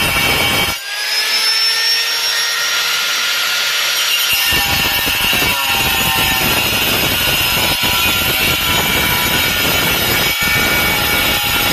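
Handheld angle grinder cutting porcelain tile: a loud grinding screech over the motor's steady whine. About a second in, the grinding drops away for a few seconds, leaving the motor's whine alone, then the blade bites into the tile again and grinds on.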